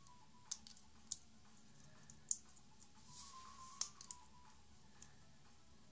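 Small plastic LEGO pieces clicking and tapping as they are handled and pressed together: a handful of short, sharp clicks, the loudest about two seconds in.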